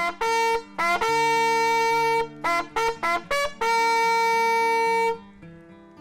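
Brass hunting horn blown as a call: a few short rising notes, a long held note, a quick run of short notes, then a second long held note that stops about five seconds in.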